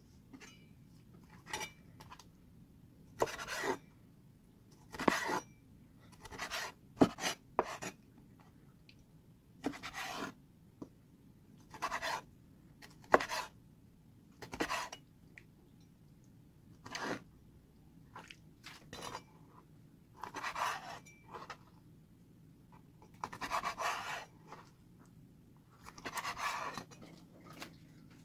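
Stainless steel cleaver chopping raw squid on a bamboo cutting board: irregular knocks of the blade through the flesh onto the wood, a few seconds apart, with a few longer scraping sounds near the end.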